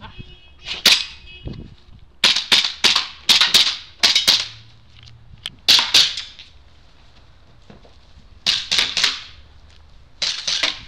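KJW P229 airsoft gas blowback pistol firing: sharp pops, some single, a fast string of about seven, then pairs and triplets with short pauses between.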